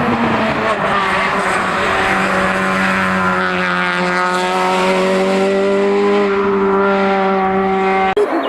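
Hillclimb race car engine held at high revs under load, its note rising slowly over several seconds as it accelerates up the climb, then cutting off suddenly near the end.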